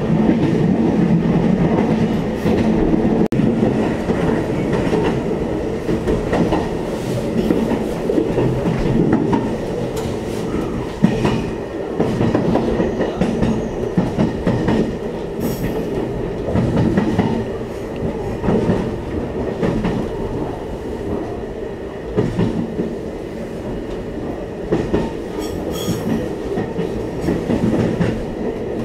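Electric commuter train heard from inside the carriage while running: a steady rumble of wheels on rail, with repeated clickety-clack over the rail joints.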